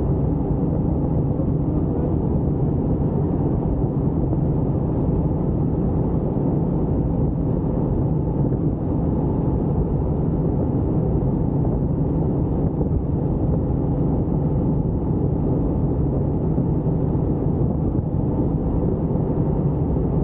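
Helicopter in flight: a steady low drone of rotor and engine, holding the same pitch and level throughout.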